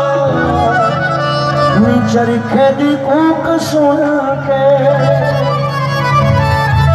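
Live Indian devotional folk music played over a PA system: a sustained, reedy keyboard melody over a steady low drone.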